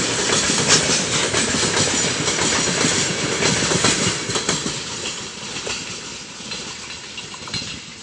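Wheels of a heavy freight train's open wagons clattering on the rails as the last cars pass and roll away, the sound fading steadily.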